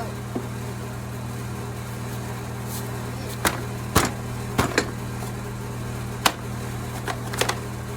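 Scattered knocks and clicks from plastic body panels being worked off an ATV, over a steady low hum.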